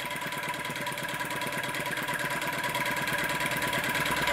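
Scratch-built flame licker (vacuum) engine running smoothly, a fast, even mechanical beat that grows gradually louder.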